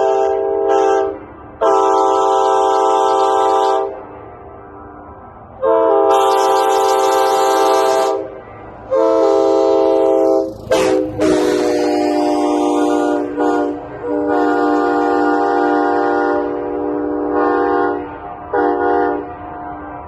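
Nathan K5HA five-chime train horn blowing a steady chord in a run of blasts. The early blasts are long, two to three seconds each, and quicker short blasts come near the end.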